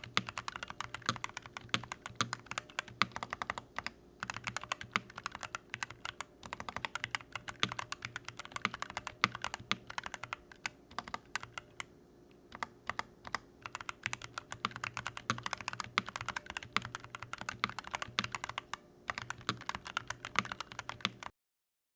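Typing on a Keychron V1 mechanical keyboard with stock, pre-lubricated Holy Panda X tactile switches (polycarbonate top housing, nylon bottom housing, POM stem): a dense run of keystroke clacks with a few brief pauses, cutting off suddenly near the end.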